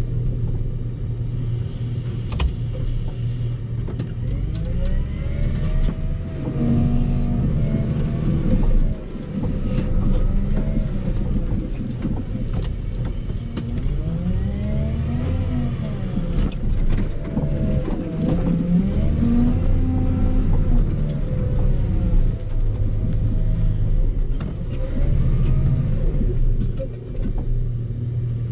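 Volvo L60H wheel loader's diesel engine working hard while pushing snow, heard from inside the cab. It revs up and drops back several times, with a rising and falling whine.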